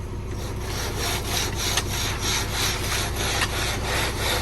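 Rhythmic scraping of hand tools dragged through wet concrete while a slab is raked and struck off, about three strokes a second. A steady low engine hum runs underneath.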